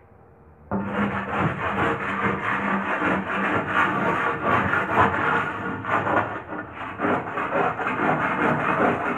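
A long bar scraping rapidly back and forth over a painted plaster wall, taking off the old paint. The scraping starts abruptly about a second in and then runs on as a dense rasping of quick strokes.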